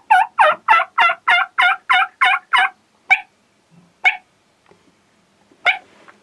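Wild turkeys calling: a fast run of about a dozen loud, sharp calls, about four a second, that stops near three seconds in. Three single calls follow, spaced out.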